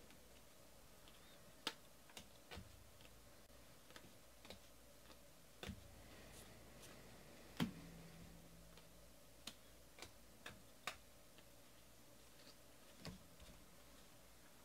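Faint, irregular clicks and taps of baseball trading cards being handled: picked up, thumbed through and set down on a tabletop, over quiet room tone. The sharpest tap comes about halfway through.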